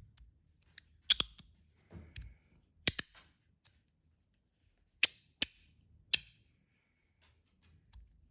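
Copper Magnus Robo fidget slider with strong magnets, its zirconium plates sliding and snapping into place with sharp metallic clicks, about every second or two, some in quick pairs.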